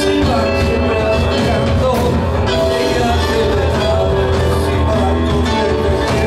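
Live progressive rock band playing loud, with held keyboard notes over electric guitar, bass and drums.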